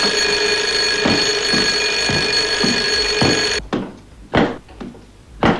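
Alarm clock bell ringing loudly and steadily, cutting off suddenly about three and a half seconds in. A few dull knocks follow, spaced about half a second apart.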